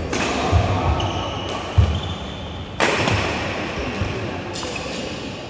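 Badminton rally in an echoing hall: sharp cracks of rackets hitting the shuttlecock right at the start and again about three seconds in, with players' feet thudding on the court between the shots.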